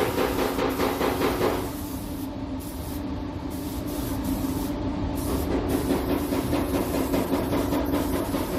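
Spray gun hissing as primer is sprayed onto a masked car panel, over a steady low hum. For the first second or two a fast, rhythmic pulsing sits on top, then the hiss continues smoothly.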